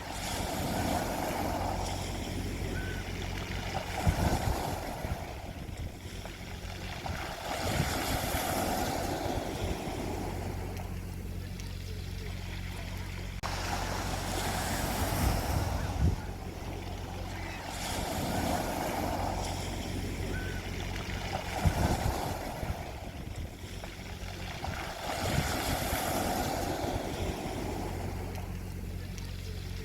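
Sea waves breaking and washing on a shore, swelling and easing every few seconds with a few sharper crashes, over a steady low rumble.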